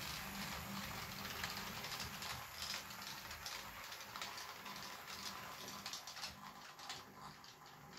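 Model train running on the layout track: the Jouef 231 K 8 steam locomotive and its coaches make a steady rattle with irregular sharp wheel clicks over the rail joints, growing fainter as the train moves away.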